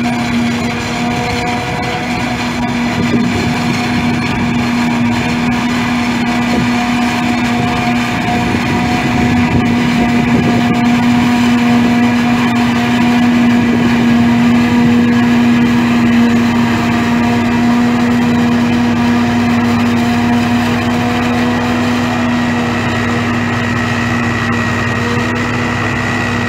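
Claas self-propelled forage harvester chopping standing maize into a trailer, with the tractor alongside: a steady, loud machine drone carrying a constant humming tone.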